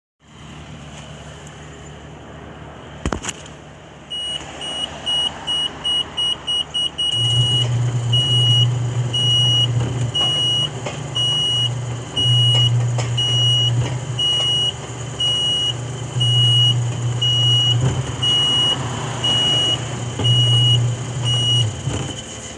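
Electric gate's warning beeper sounding a high beep, quick at about three beeps a second, then from about seven seconds in slower, about one beep a second, over a low hum. A sharp click about three seconds in.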